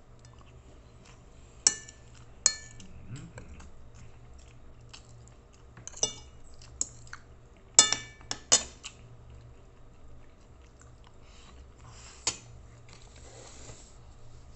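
Metal spoon and fork clinking and scraping on a plate, about eight sharp clinks with a short ring, the loudest cluster about eight seconds in. Quiet chewing between the clinks.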